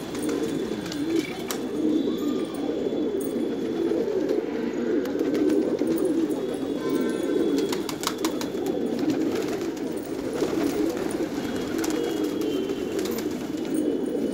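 A flock of domestic pigeons cooing all together in a continuous low chorus, with a few sharp clicks about halfway through.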